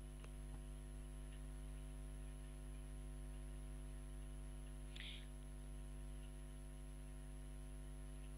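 Steady low electrical mains hum with a faint hiss, the background noise of the microphone line, with one brief faint rustle about five seconds in.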